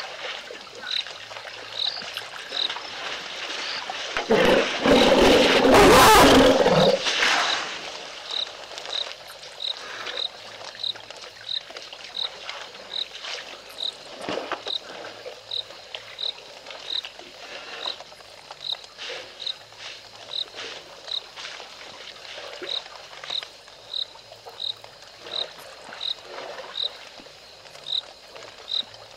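A single high frog call repeats evenly about every two-thirds of a second. A loud rushing burst of noise cuts across it for about three seconds, starting about four seconds in.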